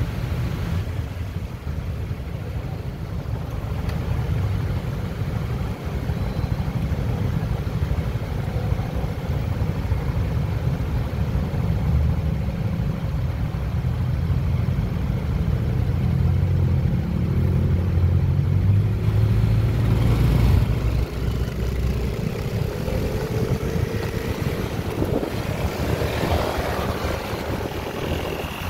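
Steady wind rumble on the microphone from riding a Honda Click 125i scooter, with the scooter's single-cylinder engine running beneath it and a faint whine drifting up and down in pitch in the second half.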